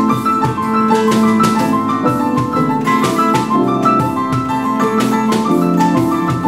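Acoustic pop band playing an instrumental passage led by piano, with sustained chords and a steady rhythmic pulse.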